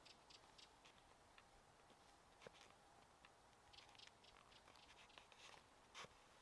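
Near silence: faint room-like hiss with scattered soft clicks and ticks, and one slightly louder click about six seconds in.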